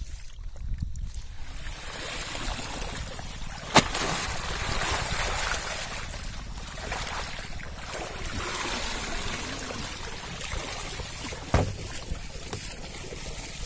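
Water sloshing and splashing as a plastic crate of freshly caught fish is dipped and swished in shallow water to rinse them. A sharp knock sounds about four seconds in, and a weaker one about three-quarters of the way through.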